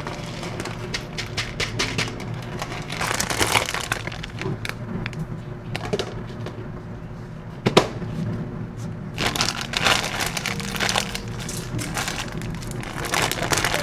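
Irregular crackling and crinkling with scattered sharp clicks, coming in clusters, over soft background music.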